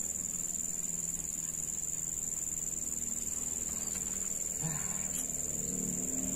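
Insects shrilling in one steady, unbroken high-pitched drone.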